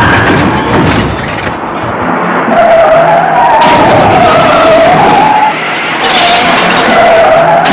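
Car tyres squealing in a skid over engine and road noise, the squeal wavering up and down in pitch.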